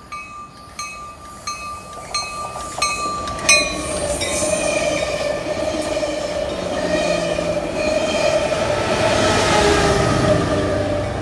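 A bell dings about every 0.7 seconds, stopping about three and a half seconds in. Then a Coaster commuter train's bilevel passenger cars roll past close by, their wheels squealing steadily on the rails, loudest near the end.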